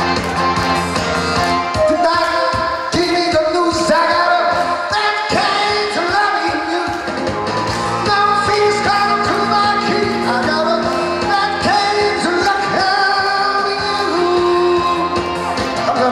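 A man singing a pop song into a handheld microphone over instrumental backing music.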